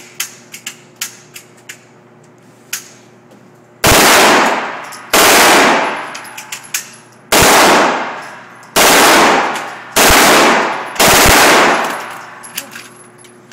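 MP5K submachine gun, a 9 mm gun, fired on full auto in six short, very loud bursts about one to two seconds apart, overloading the recording.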